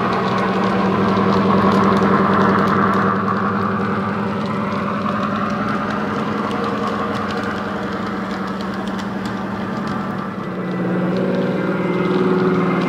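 A model Class 23 'Baby Deltic' locomotive's DCC sound decoder playing a single Deltic diesel engine sound through a small EM2 speaker, running steadily while the loco hauls coaches. The engine note changes about ten seconds in.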